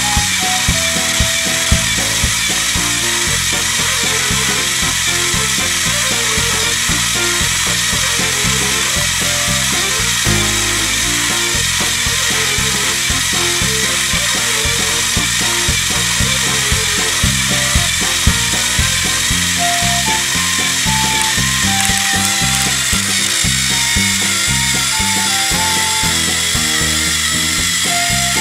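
Battery-powered TrackMaster toy engines pushing head to head against each other: their small electric motors whir and their plastic gears grind under strain as the engines strain against each other. Background music plays throughout.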